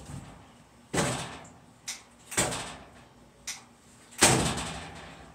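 A series of about six knocks and bangs, each ringing on and dying away over up to a second. The loudest comes a little past four seconds in.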